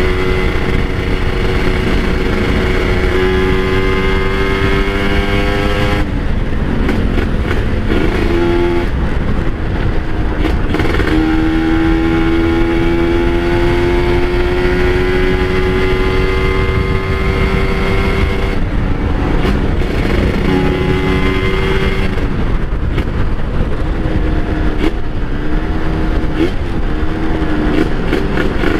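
Kawasaki Ninja RR's 150 cc two-stroke single-cylinder engine under way, its pitch climbing slowly through each gear and dropping at several gear changes, over a steady low rush of noise.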